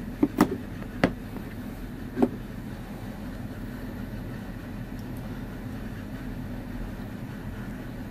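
A few light knocks and clicks as a phone and its cardboard box are set down and arranged on a wooden table. After that, only a steady low background hum.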